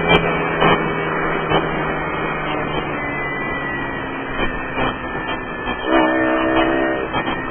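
Mash Fifty 50cc single-cylinder motorcycle engine heard from a handlebar camera while riding. After a sharp click just after the start, the engine note sinks under a steady rush of wind and road noise, then comes back as a clear steady note about six seconds in.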